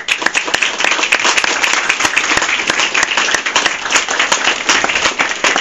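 Audience applauding loudly: many hands clapping in a dense, steady patter.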